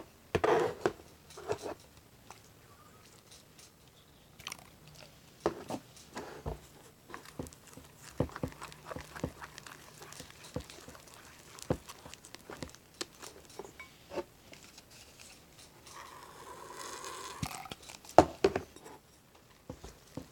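Fluffy shaving-cream slime being mixed and squeezed, giving irregular squelches, pops and crackles, with a longer drawn-out squish near the end.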